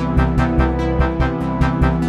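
Background music: synthesizer and electric-piano keyboard over a steady beat of about four strokes a second.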